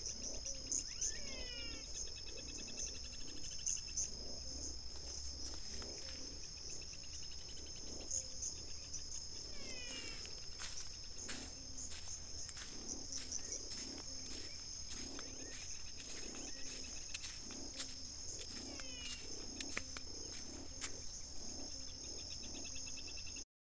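Evening-style chorus of insects and frogs after rain: a steady high-pitched insect trill throughout, over low repeated frog calls. A bird gives short falling whistled notes a few times.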